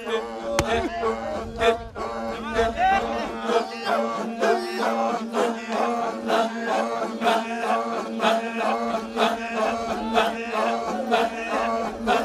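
Voices chanting in a repeating pattern over a steady low drone, with sharp percussive beats about twice a second.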